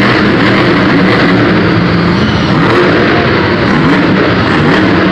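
Several monster trucks' supercharged V8 engines running loud together, their pitches rising and falling as they rev.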